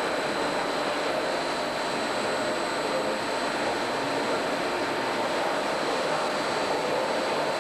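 Steady industrial machinery noise, a constant mechanical rush with a few fixed high-pitched whines over it and no change in level.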